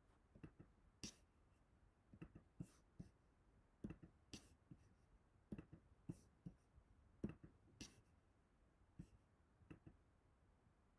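Faint, irregular clicks and taps of a computer mouse as cards are clicked to play them, about a dozen and a half spread across the stretch, over a quiet room.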